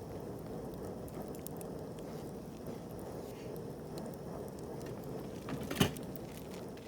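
Wood campfire burning with a steady hiss and scattered small crackles, and one loud sharp pop near the end.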